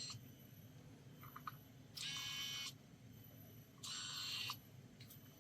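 Small geared electric motor of a Baseus solar electric car phone mount whirring in short runs of under a second as its clamp arms close and open: the tail of one run at the start, then two more about 2 and 4 seconds in.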